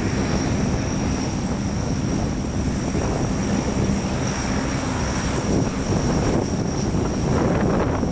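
A Lockheed WP-3D Orion's four Allison T56 turboprop engines running as the aircraft taxis. It is a loud, steady propeller drone with a thin, high turbine whine held throughout.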